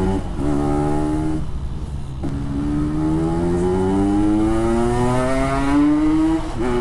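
Yamaha RX-King 135cc two-stroke single-cylinder engine pulling hard through a Packing Power PK1 aftermarket exhaust. The engine note climbs and then eases off for a moment. It then climbs again in one long pull, with a drop in pitch at a gear change near the end.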